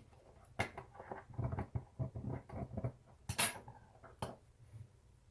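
Small metal hand tools being handled on a workbench: a run of light taps, clicks and scrapes, with one sharper click about three and a half seconds in.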